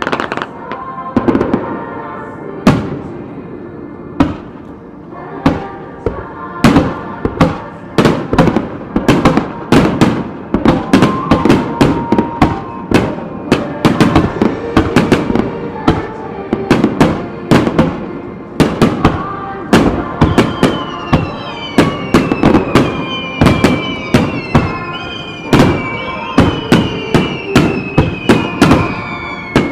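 Aerial firework shells bursting in quick succession, sharp booms and crackles several times a second, coming thicker after the first few seconds, with music playing underneath. From about 20 seconds in, a run of high falling tones repeats over the bursts.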